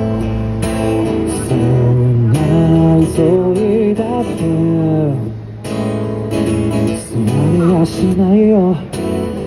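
A man singing a slow ballad to his own strummed acoustic guitar. The guitar plays alone at first, his voice coming in about a second and a half in, with a short pause in the singing around the middle.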